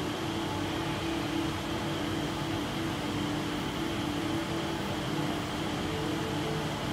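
Steady, even background noise of a large indoor atrium, with a constant low hum and no distinct events.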